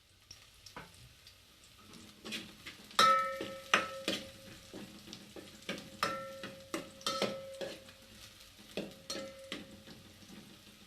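A metal spoon stirring food in a metal pot, knocking and scraping against its sides so that the pot rings after each stroke; it starts about two seconds in.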